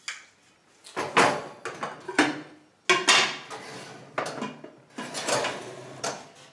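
Dishes clattering: a ceramic lid set on a stainless-steel bowl, the bowls knocked on a metal oven rack, and the pull-out rack slid back into the oven. A string of clinks and knocks, each ringing briefly.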